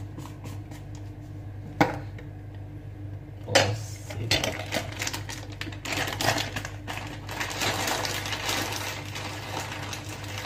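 Two sharp clicks from a small glass jar being opened and handled, then a plastic bag crinkling and rustling as it is opened and worked, over a steady low hum.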